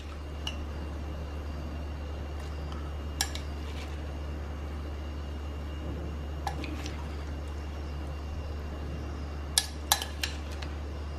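Metal spoon clinking against a glass bowl while scooping out chopped salsa: a few scattered sharp clinks, then three in quick succession near the end, over a steady low hum.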